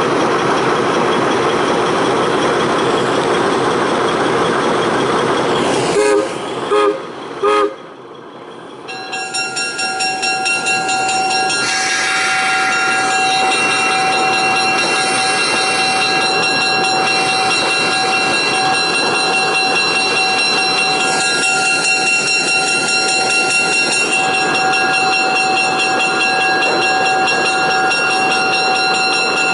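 Diesel locomotive running loudly, with three short horn toots about six to seven and a half seconds in. After a brief lull, a steady whine from the locomotive comes in, pulsing at first and then holding even.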